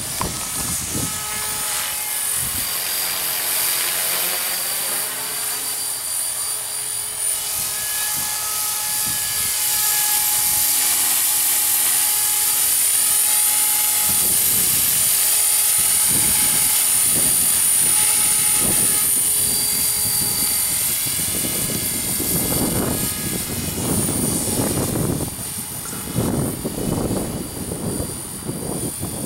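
Battery-powered radio-controlled model helicopter in flight, its electric motor and rotor making a high whine that drifts in pitch as it moves about and is loudest midway. Irregular low rumbling bursts, like wind on the microphone, come in near the end.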